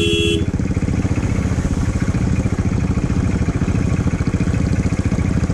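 Motorcycle engine running with a fast, even pulsing beat. A steady horn note sounds at the start and cuts off within the first half second.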